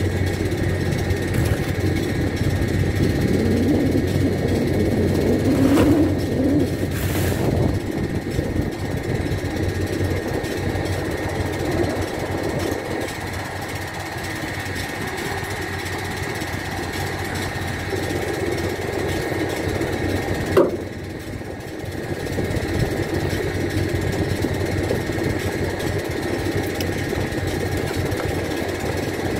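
An engine runs steadily nearby: a constant hum with a thin high whine over it. A couple of knocks come about six to seven seconds in, and one sharper knock about twenty seconds in.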